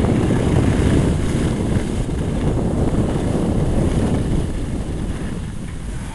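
Wind buffeting the camera microphone, a steady rumbling rush that eases off over the last couple of seconds.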